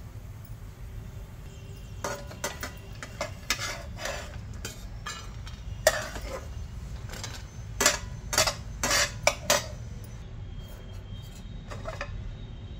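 Steel spatula scraping and tapping in a granite-coated non-stick pan as fried chopped dry fruits are scooped out. A run of clicks and scrapes starts about two seconds in and stops near ten seconds, over a steady low hum.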